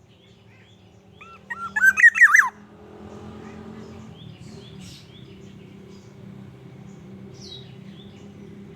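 Black-naped oriole giving a loud burst of fluty, looping whistled notes about a second in, lasting about a second and a half, with faint high chirps around it. A steady low hum sets in as the song ends.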